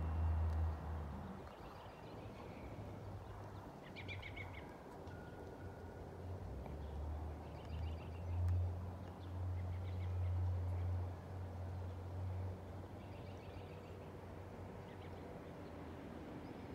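Small birds chirping a few times over a low outdoor rumble that comes and goes.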